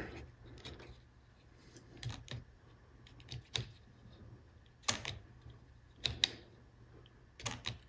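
Sharp clicks, several in close pairs, about every second or so: a pushbutton being pressed and the twin-coil solenoid machine of an N-scale snap switch (turnout) throwing its points. The machine is fired directly from the power supply without the capacitor and throws properly each time.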